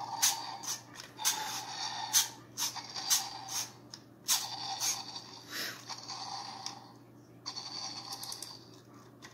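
Clockwork of a small wind-up toy dinosaur being wound by hand: irregular ratcheting clicks, with stretches of whirring from the gears that stop and start again several times.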